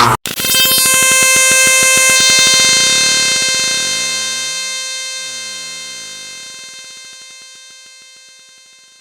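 A sustained buzzing synthesized tone, rich in overtones, that starts abruptly after a brief gap and fades slowly away over about eight seconds.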